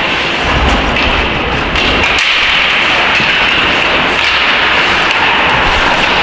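Steady hissing arena noise during play, with a few faint knocks and taps.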